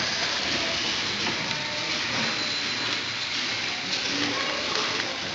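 1894 Hathorn Davey steam pumping engine running, with a steady hiss and the mechanical clatter of its rods and valve gear.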